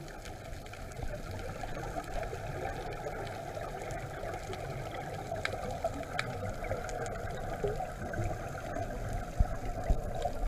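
Underwater ambience recorded by a camera in its waterproof housing during a scuba dive: a steady, low noise with faint bubbling from divers' exhaled air, and a few sharp knocks near the end.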